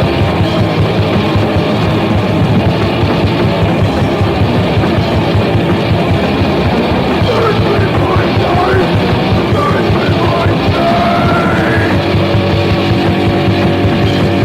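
Crust punk demo recording: a band playing fast, with distorted guitars, bass and rapid drumming. Gliding high notes come in about halfway through.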